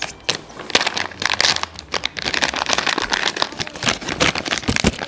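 Crinkly wrapper of a toy packet rustling and crackling as it is torn open and handled by hand, a dense run of small irregular crackles.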